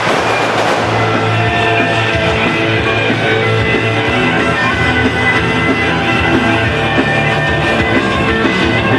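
Loud rock music playing steadily over a PA loudspeaker, a wrestler's entrance theme.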